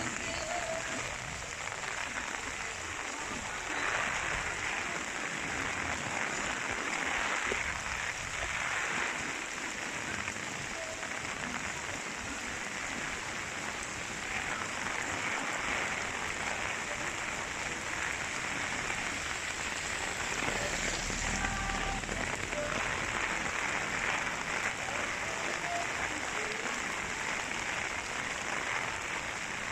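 Heavy typhoon rain hissing steadily on the street, swelling and easing in gusts every few seconds, with a low rumble about two-thirds of the way through.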